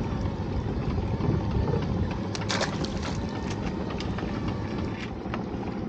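Wind on the microphone and water slapping against a small boat's hull, with a few sharp clicks and knocks, the loudest cluster about two and a half seconds in.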